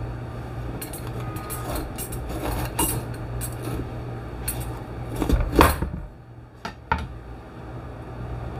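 Kitchen knife cutting through a green bell pepper and knocking on the cutting board: a series of soft clicks and knocks, the loudest about halfway through, over a steady low hum.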